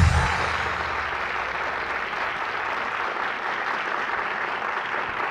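Audience applauding steadily after the music cuts off in the first moment.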